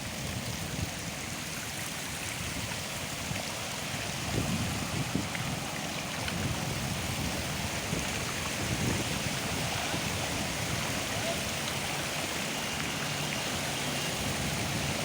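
Floodwater rushing and flowing steadily.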